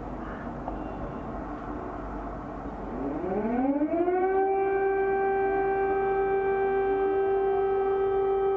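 Air raid siren starting up about three seconds in, sounding an air raid warning: its wail rises in pitch for about a second, then holds one steady tone, over low background noise.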